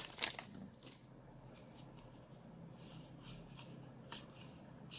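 Faint rustle of a foil booster-pack wrapper as Yu-Gi-Oh trading cards are drawn out, then soft slides and light flicks of the cards being flipped through one by one.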